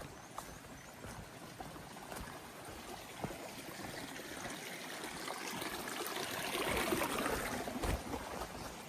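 A woodland stream running steadily. It grows louder to a peak about seven seconds in and then fades a little, as it is approached and passed.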